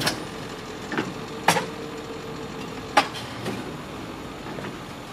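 Tow truck running, with four sharp knocks over it, the loudest about a second and a half in and at three seconds.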